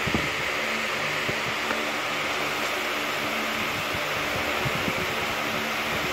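Steady mechanical hum and hiss, like a running room fan, with a few faint clicks.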